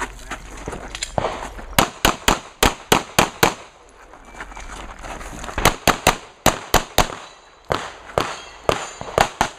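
Pistol firing in rapid strings: a run of about seven fast shots a couple of seconds in, a short pause, then two more quick strings of shots with brief gaps between them.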